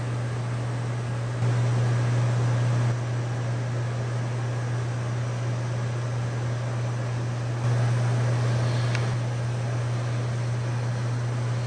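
Steady low machine hum over a hiss, like ventilation running, stepping louder twice for a second or so: about a second and a half in and again about eight seconds in.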